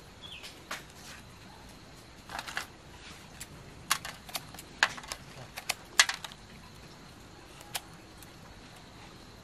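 Crisp, irregular crackles and snaps of leaves and string ties being handled while a leaf-wrapped sticky rice cake is tied and trimmed, busiest in the middle.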